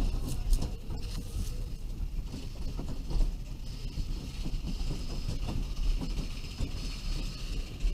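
Bobsled roller coaster car rolling along its track, a low rumble with many small irregular knocks and rattles; a steady higher hiss joins about halfway through as the car reaches the lift hill.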